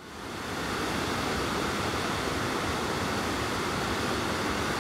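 Steady rush of a fast-flowing creek running white over rapids, fading in at the very start.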